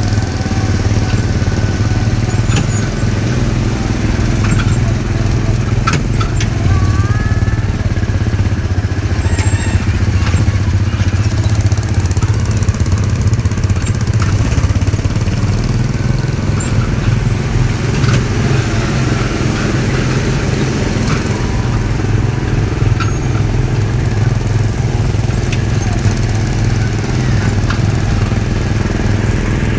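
Small gasoline engines of go-kart-style track-ride cars running steadily, heard from onboard one of the cars: a loud, even low drone with no change in speed.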